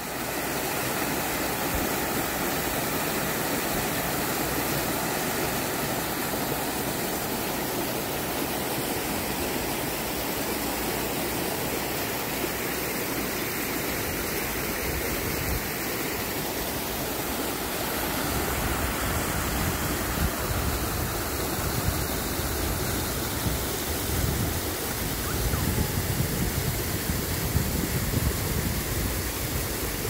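Creek water rushing over rocks in shallow rapids, a steady hiss of flowing water. Bursts of low rumble come and go in the second half.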